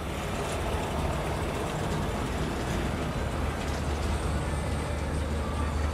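Steady low mechanical rumble with an even hiss over it.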